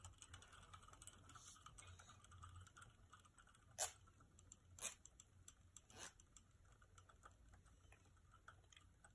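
Very faint whir of a battle top (Beyblade-style) spinning on the floor of a plastic stadium, with three sharp clicks about a second apart near the middle.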